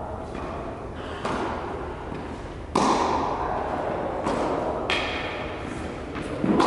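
Tennis balls being struck and bouncing, four sharp thuds, the loudest about three seconds in, each ringing on in the echo of a large indoor tennis hall.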